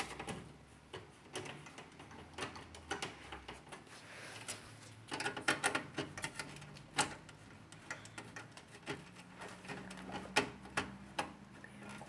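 Irregular light clicks and taps of a computer cooling fan being unscrewed and handled.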